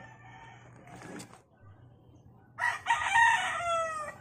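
A rooster crowing once, starting about two and a half seconds in: one long call whose pitch drops at the end.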